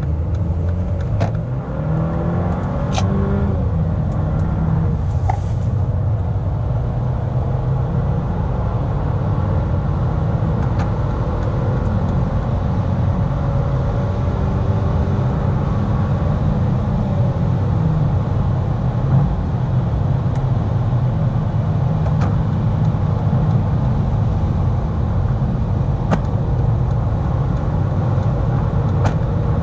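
Cabin sound of a Mercedes-Benz GLA 200's turbocharged four-cylinder petrol engine accelerating hard through the gears, its pitch rising in the first few seconds and again about halfway through. Steady low tyre and road rumble from the wet road runs underneath.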